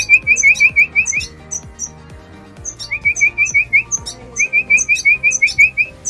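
Red siskin chirping in quick runs of short rising notes, about seven a second, in bouts of roughly a second, with thin high notes in between.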